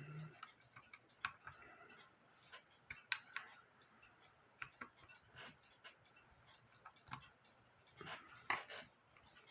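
Faint, irregular clicks and small taps of a screwdriver and metal parts being handled while the governor is taken off a music box movement, with a short cluster of louder clicks near the end.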